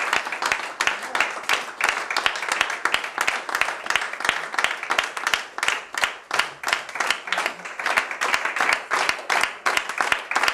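A roomful of people applauding: many hands clapping at once, dense and steady.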